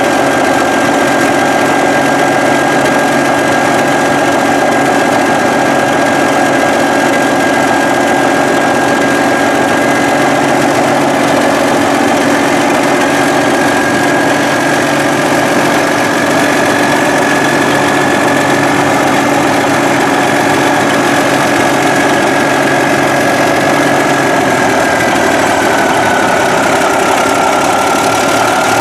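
Caterpillar D9 bulldozer's turbocharged six-cylinder diesel engine running steadily, with a high whine over it that dips slightly in pitch near the end.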